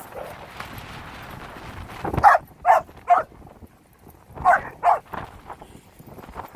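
A dog barking: a few short barks about two seconds in, then a few more about four and a half seconds in.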